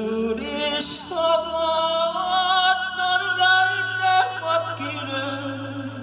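A man singing a Korean trot song live into a handheld microphone over a backing track. He holds long notes with a wavering vibrato.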